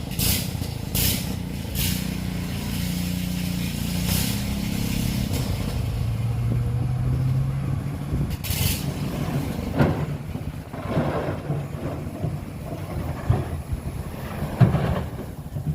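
Heavy diesel earthmoving machinery running. Its engine note drops about five seconds in and then slowly climbs. Short hissing bursts come in the first few seconds and again about eight and a half seconds in, with scattered knocks near the end.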